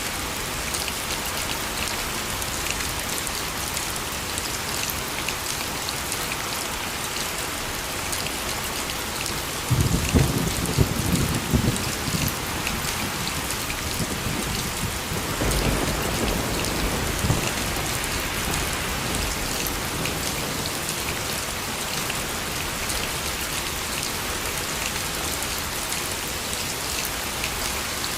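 Steady heavy rainfall hissing, with rolls of thunder: a sharp crack and rumble about a third of the way in, then a second, softer low rumble a few seconds later.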